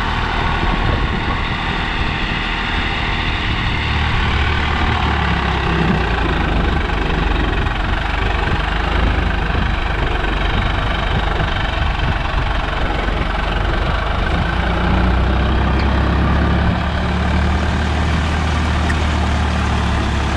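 Swaraj 744 FE tractor's three-cylinder diesel engine running steadily under load while pulling a seven-tine cultivator.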